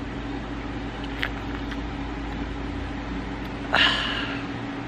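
Over a steady low mechanical hum, a man lets out one short voiced 'ahh' near the end, after a swig from a beer bottle. There is a single faint click about a second in.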